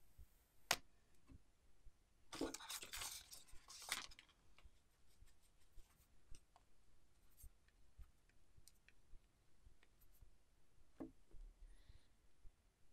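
Protective plastic film being peeled off the back of a smartphone: a sharp click, then about two seconds of crinkling, followed by faint scattered clicks of handling.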